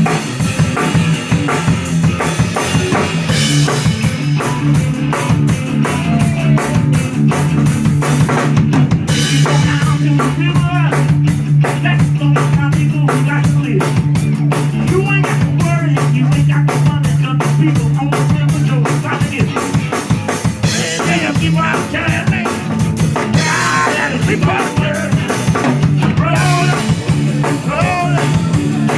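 Live blues band playing, the drum kit keeping a steady, busy beat under long held low bass notes and wavering lead lines.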